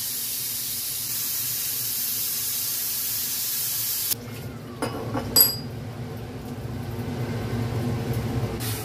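A steady hiss that cuts off suddenly about four seconds in. Then come two clinks of a steel pot being handled and lifted, the second ringing briefly, followed by a low hum.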